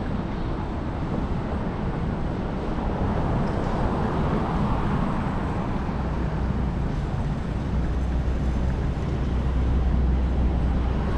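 City street traffic and road noise heard from a moving scooter, with a low rumble that grows louder in the second half.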